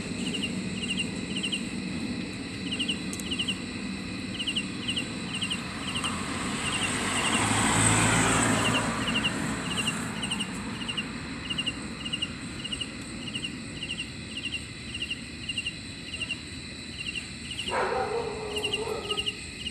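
Rural outdoor ambience: insects chirping in short high pulses at an even pace over a steady high-pitched drone. A broad rushing noise swells and fades in the middle, and a chicken calls near the end.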